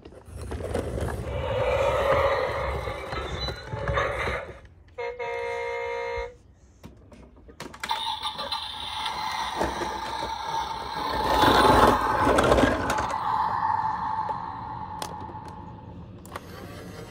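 Toy garbage trucks' electronic sound effects: a rumbling engine sound, then a buzzy horn-like tone just over a second long about five seconds in, then a long whirring sound with a steady tone and some plastic knocks.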